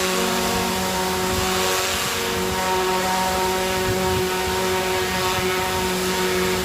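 An engine or machine running steadily: a constant hum with a few fixed tones over a noisy drone, unchanging in level.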